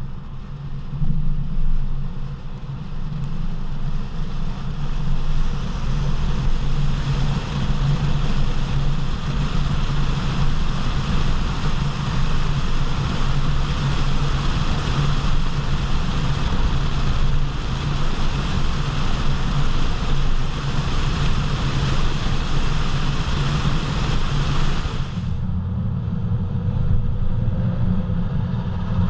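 Steady road roar from the tires of a 2014 Mercedes-Benz GL350 at speed, with wind rushing over the microphone. About 25 s in the hiss drops away abruptly, leaving the low rumble. The roar is the noise the owner is chasing, unsure whether it comes from worn, badly aligned tires or from a wheel bearing.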